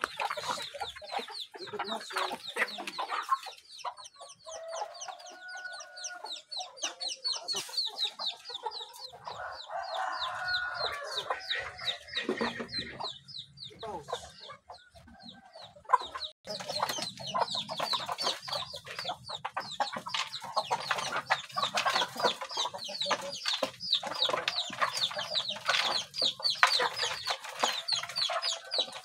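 A flock of kampung chickens clucking continuously, with longer drawn-out calls partway through and the clucking growing busier in the second half. A single sharp knock sounds about sixteen seconds in.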